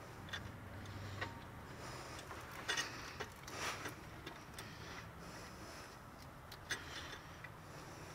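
Faint, irregular metallic clicks and taps from hand-fitting the lower mounting bolt of a replacement alternator into its bracket.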